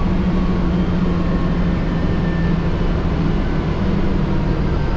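Cabin noise inside a moving transit bus: a steady engine drone with road noise. The drone sags slightly in pitch a second or two in and rises again.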